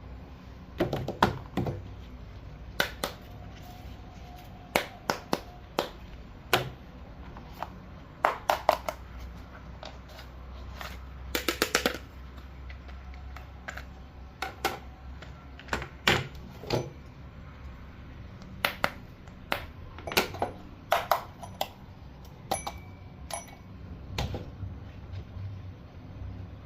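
Irregular sharp clicks and taps of hard objects being handled, some single and some in quick clusters of three to five.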